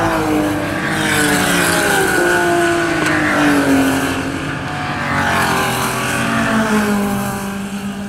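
Historic racing cars passing one after another down the straight under power, each engine note dropping in pitch as it goes by. The sound fades near the end as the last car moves away.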